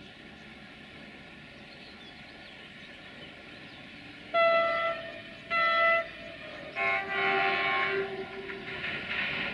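Electroputere LDE2100 (060-DA1) diesel-electric locomotive sounding its horn in two short blasts about a second apart. A longer, lower-pitched sound follows as the freight train draws near, its wagons rumbling.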